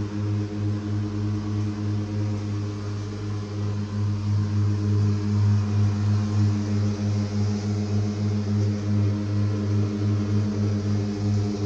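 FJD VIDAR Z42P autonomous ride-on mower running steadily while it mows, a low, even hum with a slight pulse.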